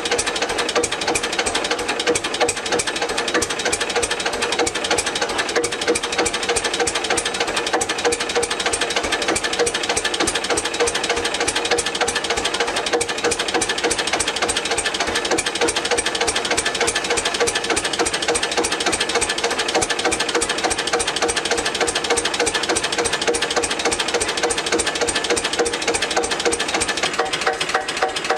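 Deutz F1L514/51's single-cylinder air-cooled diesel engine running steadily at idle, warming up after a cold start at −5 °C, with an even rapid beat of firing strokes.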